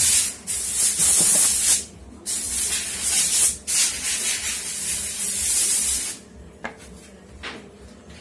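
Loud hissing in uneven bursts of half a second to two seconds, with short breaks between, stopping about six seconds in; then a few faint knocks.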